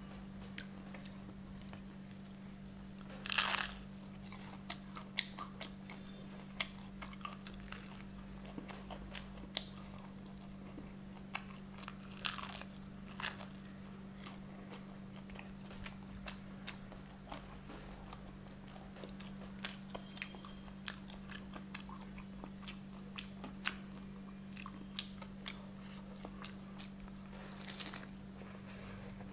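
Close-miked biting and chewing of a crispy fried chicken leg: many small crunches and mouth clicks, with a few louder crunchy bites about 3 seconds in, around 12 to 13 seconds, and near the end. A steady low hum runs underneath.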